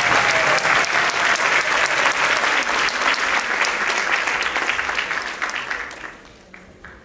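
Audience applauding in a hall, a dense patter of many hands clapping that dies away about six seconds in, leaving a few last scattered claps.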